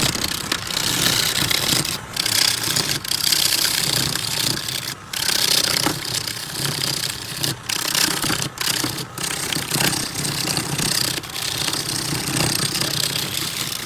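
A turning tool cutting into wood spinning on a lathe: a steady, loud scraping hiss, broken by several brief pauses where the tool comes off the work.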